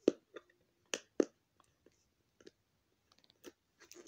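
Fingers picking at the tape sealing a small cardboard box: a few sharp clicks near the start and about a second in, then faint scratches and ticks.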